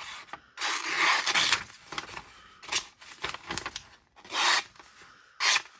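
Maxace slip-joint folding knife blade slicing through a sheet of printer paper: a long rasping cut near the start, then four shorter cutting strokes.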